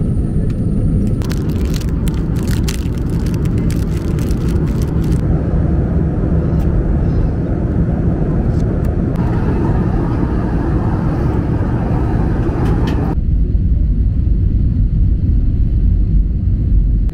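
Steady low rumble of an Airbus A320 cabin in flight, from engine and airflow noise, with a run of clicks and rustling in the first few seconds. The rumble changes character suddenly about nine and thirteen seconds in.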